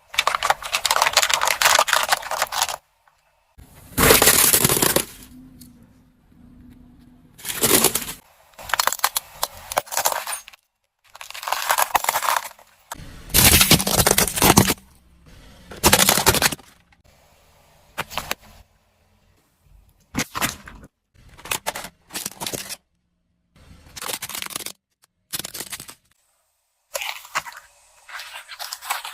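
Plastic objects cracking and breaking as a car's tyres crush them, in a series of separate crunching bursts, some brief and some lasting a couple of seconds, with abrupt breaks between them.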